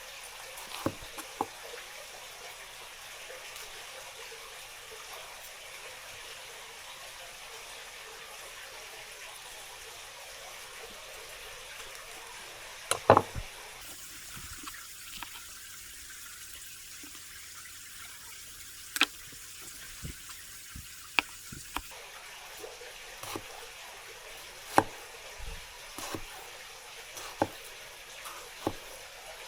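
Water running from a kitchen tap into a sink, a steady hiss that changes between about 14 and 22 seconds in. Scattered sharp knocks and clinks sound over it, the loudest about 13 seconds in and again near 25 seconds.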